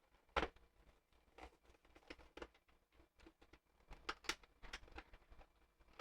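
Scattered light clicks and taps from handling a puzzle box, its parts being pushed and shifted. A sharper knock comes about half a second in, and a cluster of clicks comes near the end.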